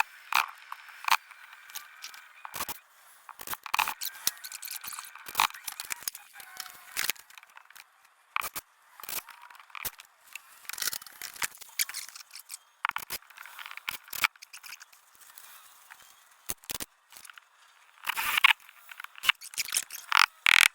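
Irregular clicks, knocks and scraping of hands working with tools and parts, with no steady rhythm.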